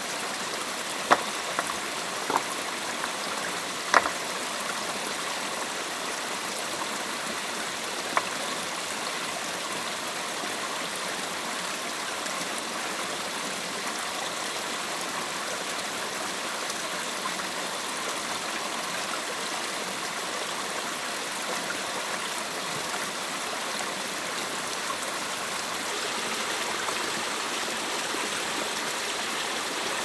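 Steady rush of running stream water, with a few sharp knocks in the first eight seconds or so.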